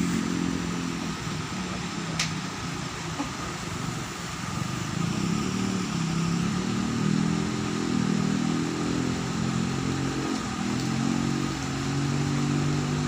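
An engine running steadily, its pitch drifting up and down, with one sharp click about two seconds in.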